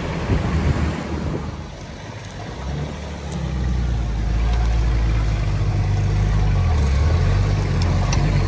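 Nissan Patrol off-roader's engine running close by as it drives slowly over rough ground, a low rumble that swells about three seconds in and shifts a little in pitch near the end.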